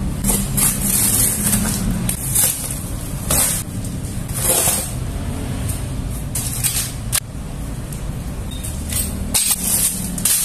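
Cardboard and paper packaging tearing and plastic wrapping rustling in short, irregular bursts while a parcel is opened. A steady low rumble runs underneath.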